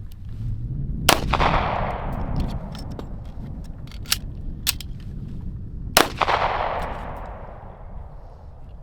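Two pistol shots about five seconds apart, each followed by a long fading echo, from a one-shot, reload, one-shot timer drill. A couple of sharp clicks come between the shots, during the magazine reload.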